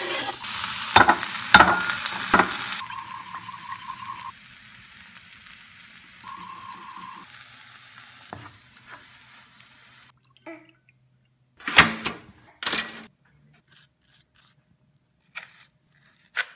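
Diced onion and tomato dropping into hot oil in a frying pan and sizzling, with a few sharp scrapes as they are pushed off the board; the sizzle dies down over several seconds. Near the end, a few separate crunching strokes of a knife cutting toast on a wooden board.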